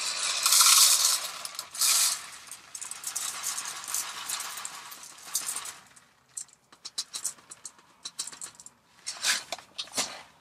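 Dry sushi rice pouring from its bag into a measuring cup: a hissing rattle of grains, loudest in the first couple of seconds, then thinning out to scattered ticks of single grains, with a couple of short pours near the end.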